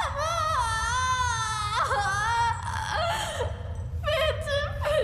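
A woman wailing in terror and pain: long drawn-out, quavering cries that slide up and down in pitch, breaking into shorter moaning whimpers about halfway through, over a low steady drone.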